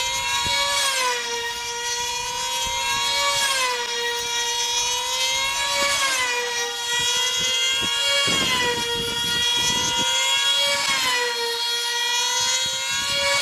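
Small high-revving model engines of F2D control-line combat planes whining as the planes circle. The pitch rises and falls in a regular cycle about every two and a half seconds, over a steadier high note.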